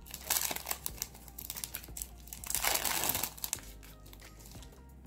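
Thin plastic packet and nail transfer foil crinkling as the packet is torn open and the foil strips are pulled out, with two louder bursts of rustling, about half a second in and around three seconds in.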